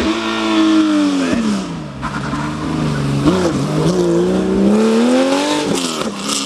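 A Porsche 911 rally car's air-cooled flat-six off the throttle into a hairpin, its note falling, then accelerating hard out of the bend with revs climbing. An upshift near the end drops the note.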